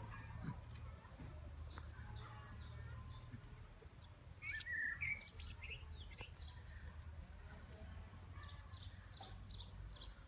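Small songbirds chirping and calling. The loudest burst of chirps comes about halfway through, and near the end there is a run of quick repeated high notes, about four a second, over a low steady rumble.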